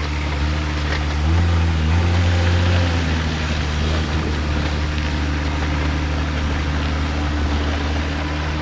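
Heavy logging truck's engine running steadily, its note rising and growing louder for a second or two about a second in, then settling back.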